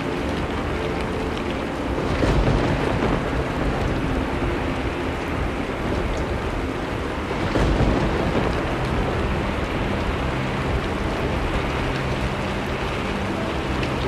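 Steady soft rain, with thunder rumbling twice: once about two seconds in and again about halfway through.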